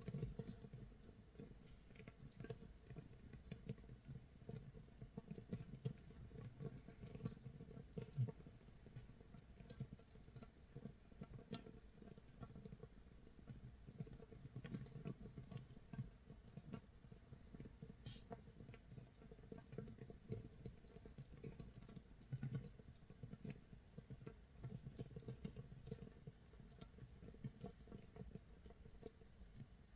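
Makgeolli starter mash (mitsul) fermenting in a jar about 24 hours in: a faint, dense, irregular crackle of bubbles popping in the mash. It sounds like light rain pattering or rice crust crisping in a pan.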